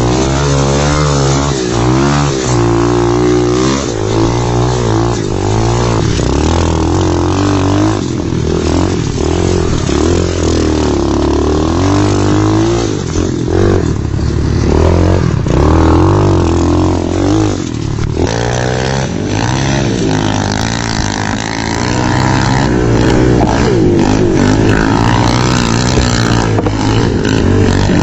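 Pit bike engine being ridden hard, revving up and dropping back again and again as the throttle is worked.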